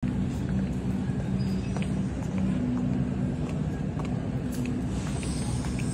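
Steady low rumble and hum of a supermarket's background noise, with a few faint clicks.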